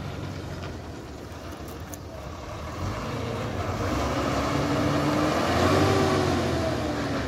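Heavy diesel lorry engines running. The sound grows louder from about three seconds in as a second truck approaches around the hairpin, and near the end the engine note rises and falls.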